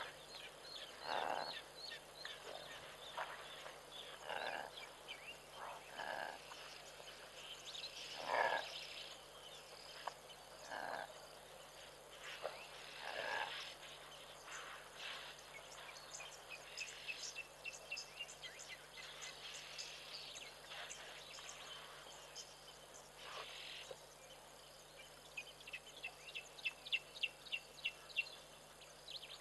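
Frogs croaking at intervals at a waterhole, with quick high chirping over them; near the end comes a run of sharp clicks at about three or four a second.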